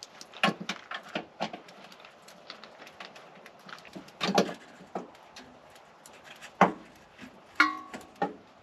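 Irregular knocks, thumps and rustles of someone handling gear and laying something down on the ground, with a short squeak near the end.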